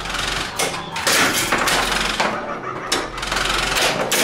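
Data East Tales from the Crypt pinball machine in three-ball multiball with the glass off: a busy mechanical clatter of balls, flippers and solenoid-driven playfield parts, with repeated sharp knocks.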